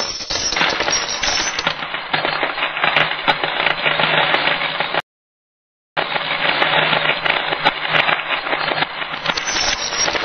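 Dense clatter of many metal coins falling and clinking together, about five seconds long, cutting off abruptly. After a second of silence the same clatter plays again, reversed.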